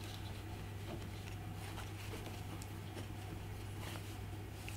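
Faint handling: soft fabric rustle and a few light clicks as a small metal tripod mount is slipped into a fuzzy drawstring pouch and the cord is drawn closed, over a steady low hum.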